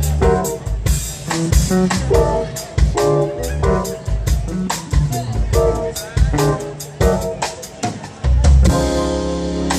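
Live band playing an instrumental groove: drum-kit beat under bass, electric guitar and keyboard chords. About eight seconds in, the band lands on a louder held chord just before the vocals come in.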